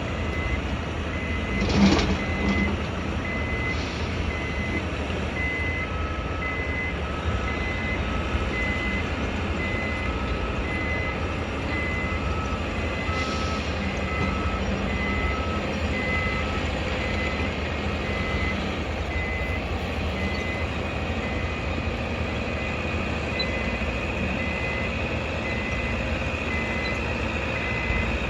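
Reversing alarms on construction vehicles beeping steadily, about one beep a second, with a second, lower-pitched alarm beeping along for about ten seconds from around six seconds in. A low engine rumble runs underneath, and a single loud bang sounds about two seconds in.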